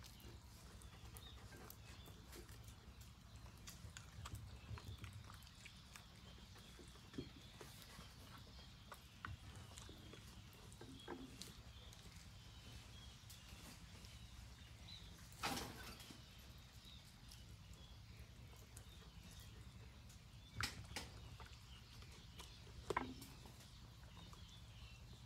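Dogs eating: faint chewing and mouth sounds made up of scattered small clicks, with three louder sharp clicks in the second half, over a low steady hum.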